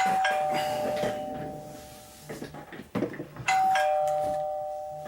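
Mobile phone ringing with a two-note falling chime like a doorbell ding-dong, sounding twice about three and a half seconds apart, each pair of notes fading away. A few small clicks of handling in between.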